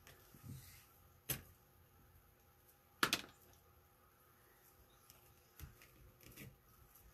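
Burlap being handled and folded by hand: faint rustling, with two sharp taps, one a little after a second in and a louder one about three seconds in.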